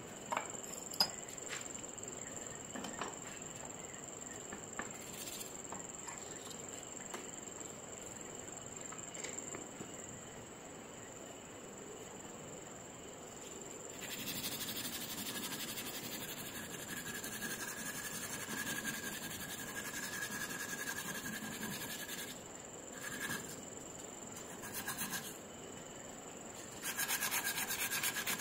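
Strip of abrasive pulled back and forth, shoeshine-style, over a small metal part of a vintage electric hair clipper clamped in a bench vise: a dry rubbing scrub that starts about halfway through. It eases off for a few seconds, then comes back louder in quick, even strokes near the end. A few small clicks of handling come first, and a thin steady high tone runs underneath.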